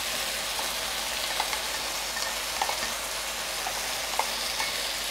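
Potatoes and broad beans sizzling as they sauté in oil in a frying pan, with a few light clicks of a spatula scraping crushed garlic and parsley out of a mortar into the pan.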